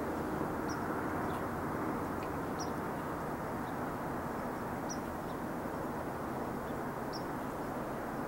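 Steady low background rumble and hiss, with a short high bird chirp repeating about every two seconds.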